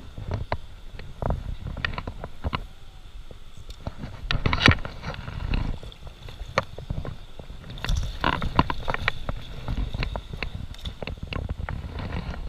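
Irregular splashes, clicks and knocks from a wading angler handling a spinning rod and reel and dipping a landing net into shallow stream water, over a low rumble.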